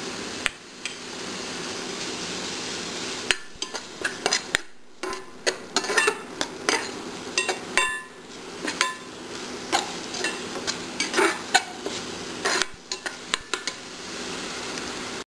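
Metal spatula scraping and clinking against a metal kadai while stirring a thick tomato masala, in quick irregular strokes from about three seconds in, over a steady hiss.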